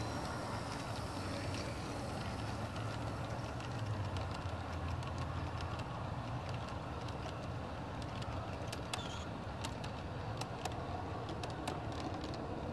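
Large-scale garden railway train rolling past on its track: a steady low rumble of wheels and running gear, with a run of sharp clicks in the second half.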